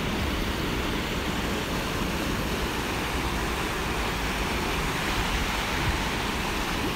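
Fast river water rushing steadily over shallow rapids, with some low wind rumble on the microphone.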